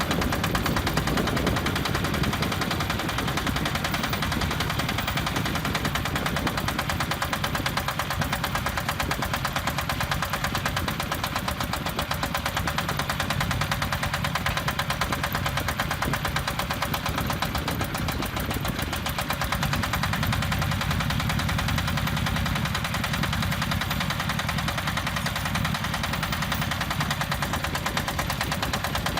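Engine of a self-loading concrete mixer running steadily with a fast, even knocking clatter.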